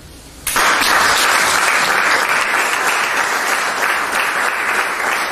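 An audience breaks into applause about half a second in and keeps clapping steadily.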